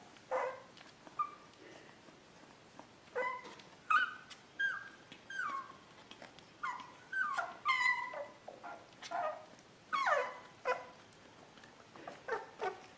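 Beagle puppy whimpering in its sleep: a string of short, high whimpers and squeaks, each sliding down in pitch, coming in clusters with short pauses between.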